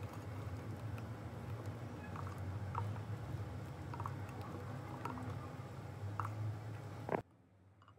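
Silicone whisk stirring thick cake batter in a glass bowl, with a few light ticks against the glass over a steady low hum. It cuts off suddenly about a second before the end.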